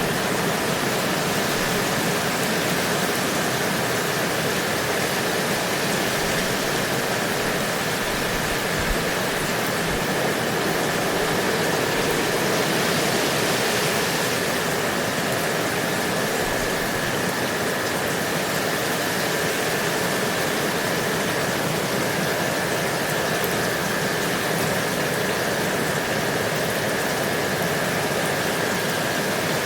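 Steady, even rain noise with no breaks. A faint high steady tone runs underneath.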